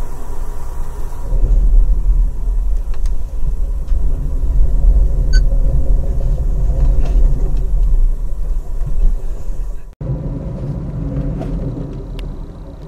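Steady low rumble of the Auto Train passenger car riding the rails, heard from inside the car, with a few faint clicks. It cuts off sharply about ten seconds in and is followed by a quieter, lighter rumble.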